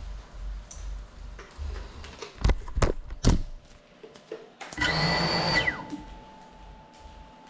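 A few sharp knocks as the small FPV drone is handled and set down, then its brushless motors spin up with a whine for about a second and wind down with a falling pitch, leaving a faint steady tone.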